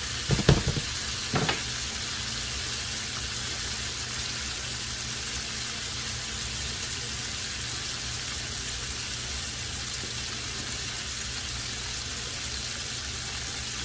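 Vegetables sizzling steadily in olive oil in a frying pan, with a few sharp knocks in the first couple of seconds.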